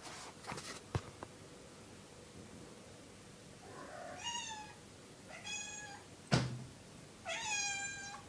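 House cat meowing three times, each meow about a second long, begging to be let outside. A single sharp knock comes between the second and third meows, and a few faint clicks come in the first second.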